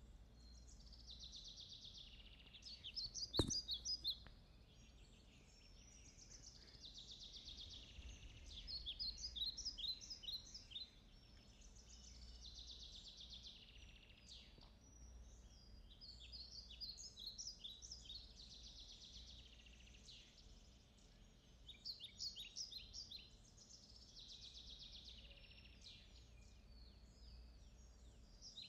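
Faint bird song with a buzzy phrase ending in a quick run of short high notes, repeated about every six seconds, over a steady low room hum. One sharp click about three seconds in.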